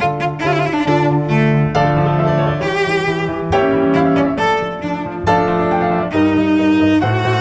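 Instrumental background music: a melody of sustained pitched notes that change every fraction of a second, with a string-like sound.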